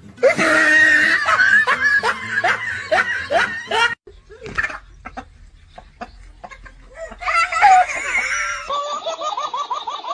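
People laughing hard in pulsing bursts, then quieter for a few seconds and another loud burst of laughter. Near the end, a rapid run of short rising cheeps, about five a second, from begging nestling birds.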